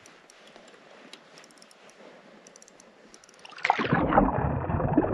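Faint ticking of a spinning reel being cranked as a trout is brought up to the ice hole. About three and a half seconds in, much louder music cuts in, sounding muffled.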